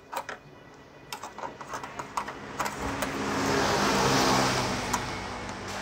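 Light clicks and taps of a screwdriver working on the aluminium frame of an LED display panel. From about three seconds in, a passing motor vehicle's engine swells and fades and becomes the loudest sound.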